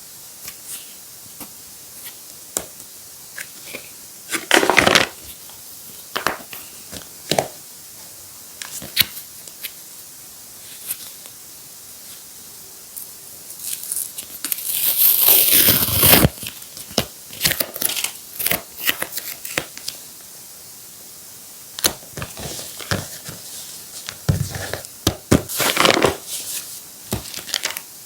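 Paper being handled: scattered crinkles, rustles and light taps, with a longer, loud tearing or ripping sound about fourteen seconds in that lasts a couple of seconds.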